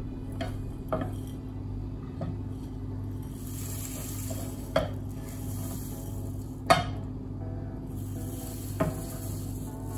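A spoon stirring oats into melted butter and golden syrup in a saucepan, scraping, with occasional sharp knocks against the pan. The loudest knock comes about two-thirds of the way through.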